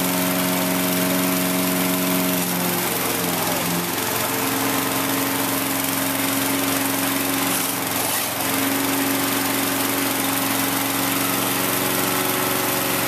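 Walk-behind gasoline lawn mower engine running steadily under a child's control. Its engine note dips briefly twice, about three seconds in and again around eight seconds.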